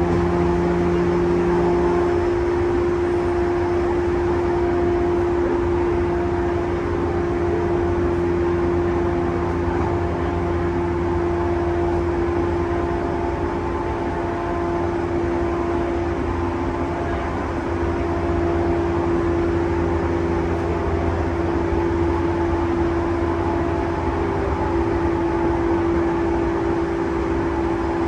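In-car running noise of a JR East E235 series 1000 electric train at speed: a steady rumble of wheels on rail with one constant humming tone over it.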